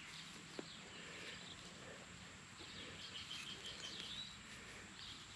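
Faint outdoor birdsong: scattered chirps, with a quick run of short repeated notes about three seconds in, over a steady high-pitched tone.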